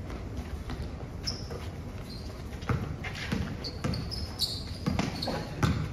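Basketball bouncing on a hard outdoor court as a player dribbles: a run of irregular thumps starting a little before halfway. Short high squeaks of sneakers on the court are mixed in.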